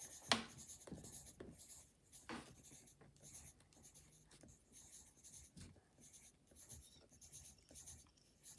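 Pencil scratching on paper in short, quick strokes, drawing lots of small circles. A sharp tick sounds about a third of a second in.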